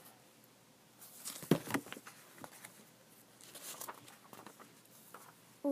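Rustling and a sharp bump as a picture book is handled and moved, with fainter paper rustles a few seconds later.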